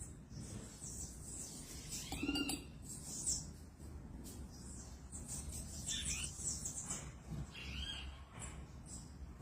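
A small bird gives a few short, arched chirps, spaced a few seconds apart, over a steady high-pitched chirring.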